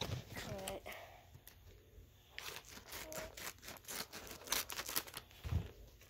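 Folded notebook-paper envelope being handled and torn open by hand: a quick, irregular run of paper crinkling and tearing crackles that starts about two and a half seconds in.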